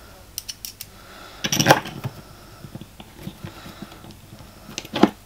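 Allen key and steel parts of a hand-built knurling tool being handled and screwed together: light metallic clicks and clinks, with a louder clattering knock about one and a half seconds in and another sharp knock near the end.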